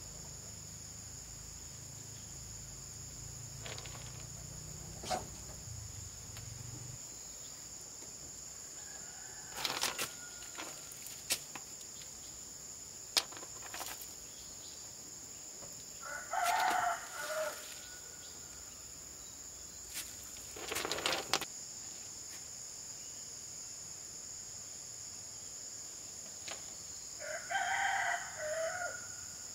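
A rooster crows twice, once about halfway through and once near the end, each crow lasting about a second and a half, over a steady high insect drone. Scattered short knocks of stones and tools are heard between the crows.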